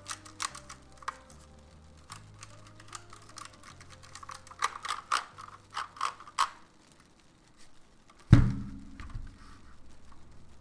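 Mechanical keyboard keys clacking in an irregular run of sharp clicks, then a single loud low thump about eight seconds in.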